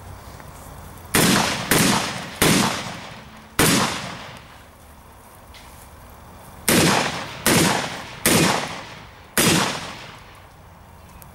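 Shotgun fired eight times in two strings of four, the shots about a second apart or less, with a pause of about three seconds between the strings. Each shot trails off in a short echo.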